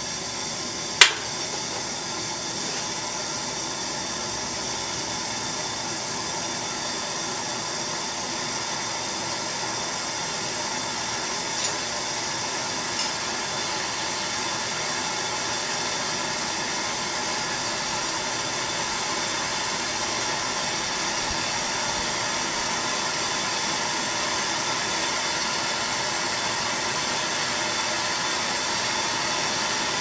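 Handheld gas torch burning with a steady hiss while a battery-cable ring terminal is heated and solder is fed into it. A single sharp click about a second in is the loudest event, with two faint ticks later.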